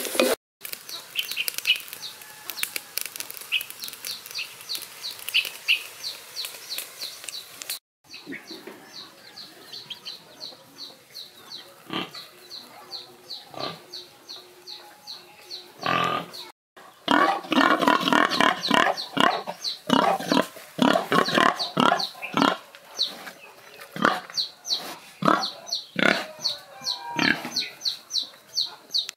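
Farmyard animal sounds: a pig grunting and chickens clucking, busiest and loudest in the second half, over a fast, high repeated chirping.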